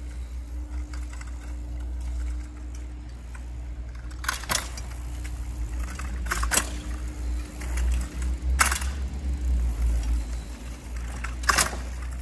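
Steady low rumble of wind buffeting the microphone, broken by four sharp clatters spaced about two seconds apart.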